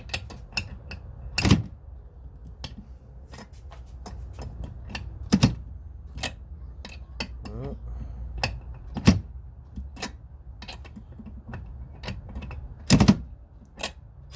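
Scattered, irregular clicks and metallic knocks of hand tools being handled on a bolt, with louder knocks about a second and a half in, around five and a half and nine seconds, and a double knock near the end.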